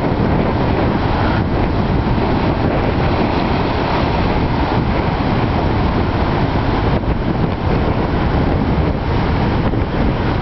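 Strong wind buffeting the microphone over heavy winter surf breaking against the sea wall: a loud, steady rush, heaviest in the low end, with no let-up.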